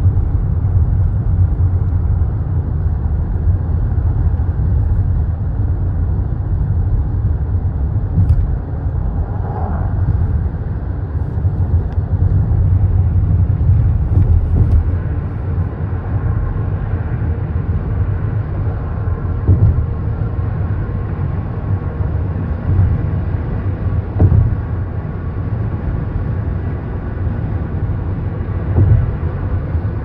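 Steady low rumble of a moving car, road and engine noise heard from inside the cabin, with a few light knocks.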